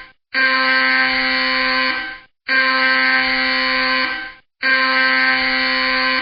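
Intense alarm sound effect: a loud alarm tone sounding in blasts about two seconds long with short gaps between, three in a row. Each blast steps up slightly in pitch just before it stops.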